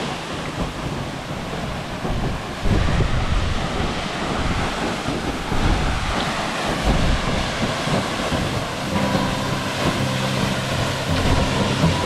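Wind buffeting the microphone over a steady rushing noise. About nine seconds in, a low steady hum with several tones joins it.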